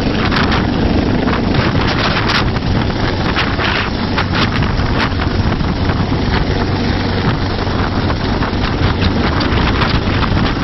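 Coastguard search-and-rescue helicopter hovering low overhead: loud, steady rotor and engine noise, with the rotor downwash buffeting the microphone in short gusts.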